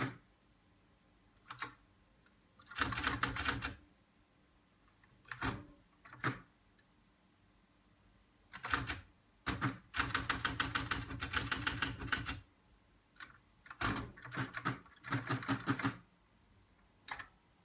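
Siemens T1000 teleprinter clattering in short bursts of rapid, even mechanical strokes, with single clicks and pauses in between. The longest run lasts about two seconds, a little past halfway through.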